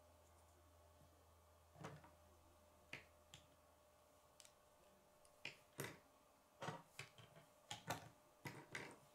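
Plastic K'nex rods, connectors and gear pieces clicking and snapping together as they are fitted by hand: scattered sharp clicks, a few at first and then a quicker run of them in the second half.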